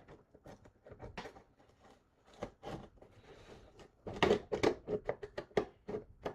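Handling of a shipping package: a string of irregular clicks, taps and rustles, busiest from about two-thirds of the way through.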